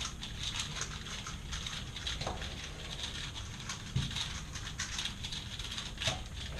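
Fast, irregular plastic clicking and clatter of speedcubes being turned and handled, with a louder knock about four seconds in.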